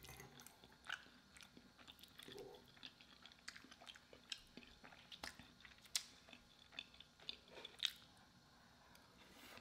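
Faint close-miked eating sounds: soft chewing and small mouth clicks from a mouthful of cheesy chicken pot pie lasagna, with a fork scooping more from the glass baking dish for the next bite. Scattered small clicks and ticks come every second or so.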